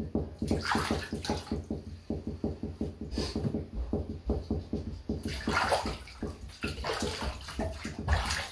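Bathwater sloshing and splashing in a bathtub as a hand scoops and swishes it over a hen sitting in the water, in repeated splashy bursts.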